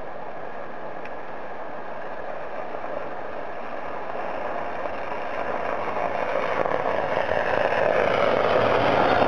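Class 90 electric locomotive 90 021 accelerating away with its train, a steady rushing noise that grows louder from about halfway through as it draws nearer.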